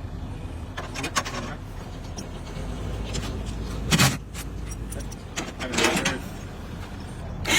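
Mechanical clunks and knocks from the roof-top boat loader's metal rack and fittings, with one loud sharp knock about four seconds in, over a steady low rumble.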